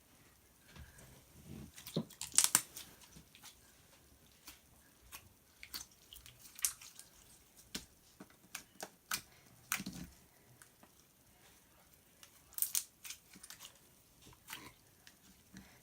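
Slime being squeezed and worked by hand, giving irregular sticky clicks and pops, with the loudest cluster about two seconds in and another near the end.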